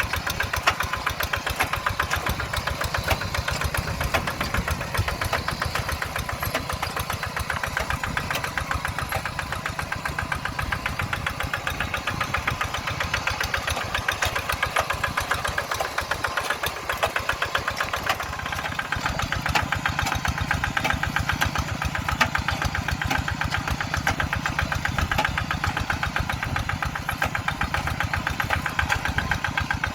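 Kubota RD85DI-2s single-cylinder diesel engine of a Quick Zeva G3000 two-wheel hand tractor running steadily, with the rapid, even knock of its firing strokes; the low end eases briefly a little past halfway, then steadies again.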